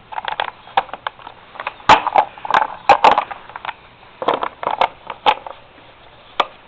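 Irregular clicks, knocks and short scrapes of the air filter cover being handled and fitted back onto a Kohler lawnmower engine.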